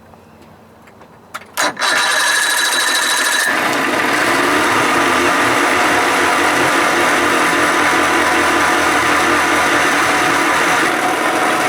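40 hp Johnson two-stroke outboard motor starting from cold: it catches about a second and a half in, runs fast for a couple of seconds, then settles into a steady idle.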